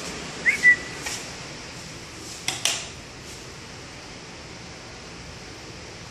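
A short high squeak about half a second in, with sharp clicks around it and two more knocks about two and a half seconds in, as a door is pushed open and moved; a steady hiss underneath.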